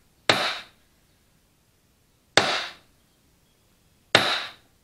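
Ball-peen hammer striking a center punch three times, metal on metal, each strike sharp with a short ring: punching witness marks on the end cap and case of a tractor starter motor so it goes back together aligned.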